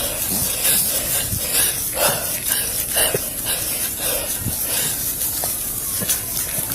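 Rustling and handling noise from clothing and gear moving against a body-worn camera's microphone, over a steady hiss.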